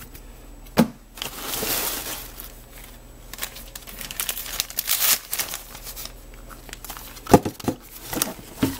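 Paper crinkling and rustling as tissue paper and the gift wrap on a board book are handled and pulled open. A sharp knock comes about a second in, and a few more near the end.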